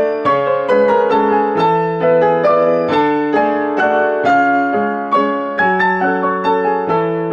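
Background piano music: a gentle melody of notes and chords struck about two or three times a second, each note ringing and fading.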